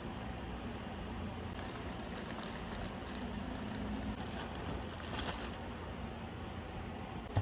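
Plastic bread bag crinkling and rustling as it is opened and a slice of bread is drawn out, for about four seconds from a second and a half in, over a steady low room hum.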